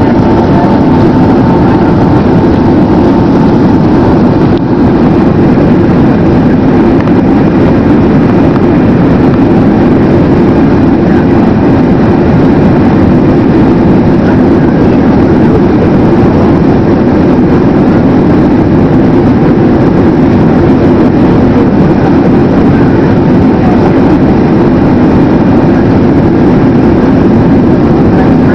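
Steady, loud rush of engine and airflow noise inside the cabin of a Boeing 767-300 airliner in flight.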